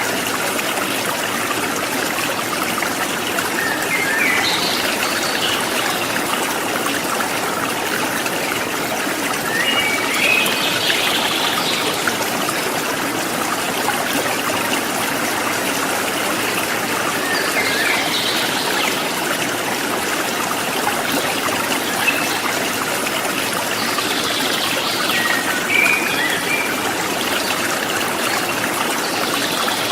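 River water flowing steadily over rocks. Every several seconds there are brief higher-pitched sounds over the steady rush.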